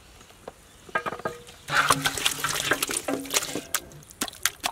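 A pot-load of raw chicken drumsticks sliding and tumbling out of a steel pot into a tub: a wet, slithering rush full of clicks that starts just under two seconds in and lasts about two seconds, followed by a few sharp knocks.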